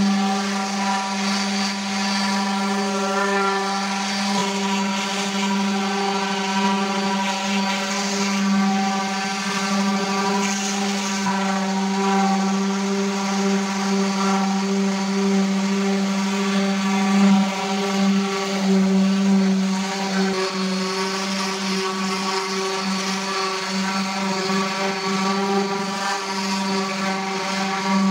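A woodworking power tool's electric motor running at a steady, unchanging pitch, its loudness swinging slightly as it works.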